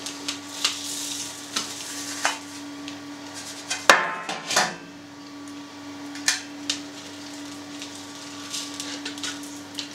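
Handling noise as a plastic cheese mould and a perforated stainless steel tray are lifted, turned and set down, with gritty scraping and light clicks. A sharp metallic knock comes about four seconds in as the tray is put down on the table, followed by a couple of smaller knocks. A steady low hum runs underneath.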